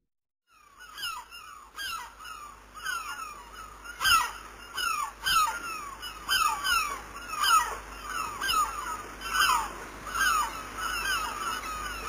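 A flock of gulls calling over and over, many short calls that each fall in pitch, starting about a second in, over a faint low rumble.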